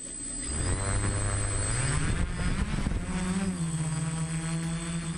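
Quadcopter drone's motors and propellers spinning up for takeoff: a buzzing whine that rises in pitch about two seconds in, then holds steady as it lifts off.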